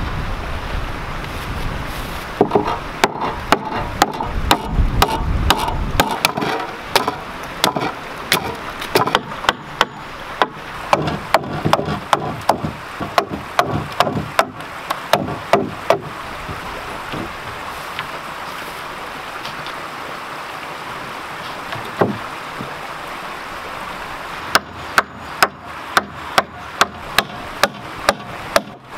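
Hammering on wood: runs of sharp blows about two a second, pausing for several seconds partway through with a single knock, then starting again near the end. A stream rushes steadily beneath.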